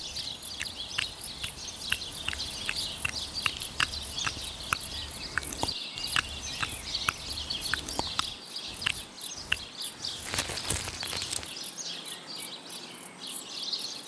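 Outdoor bird and insect ambience: a run of short sharp chirping ticks, about three a second, over a high hiss, stopping about nine seconds in, with a brief rustling burst a little after ten seconds.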